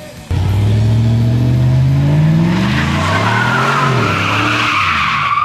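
Pickup truck doing a burnout. The engine revs up in pitch, and from about halfway the spinning rear tyres squeal loudly.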